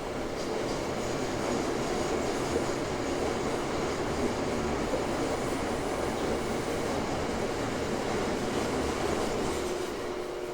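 Toei 5300 series subway car running at speed, heard from inside the car: wheel-on-rail rolling noise over the hum of its Mitsubishi GTO-VVVF inverter and traction motors. The inverter's steady tones come through again near the end as the overall level eases off. This set's drive is unusually loud when accelerating and braking.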